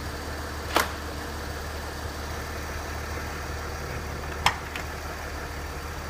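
Mercedes-Benz G350's V6 diesel engine idling steadily after a remote start. Two sharp clicks cut through, about a second in and again near the middle.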